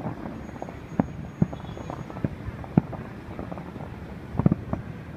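Aerial fireworks shells bursting: a string of sharp bangs at irregular intervals, with several coming close together about four and a half seconds in.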